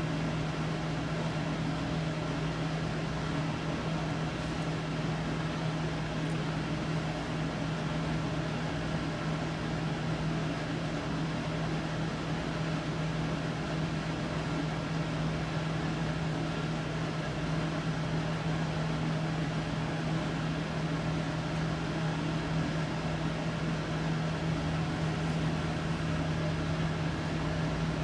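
Steady mechanical hum: one constant low tone over an even whir, with the low rumble growing a little stronger near the end.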